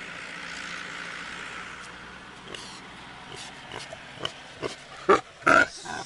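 A large domestic pig grunting as it walks, with two short, loud grunts close together about five seconds in.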